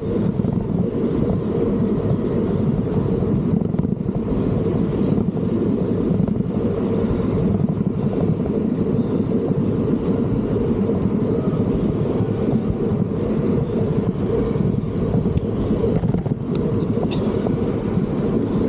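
Wind and road noise on an action camera's microphone while riding a bicycle in city traffic: a steady low rushing noise with no let-up.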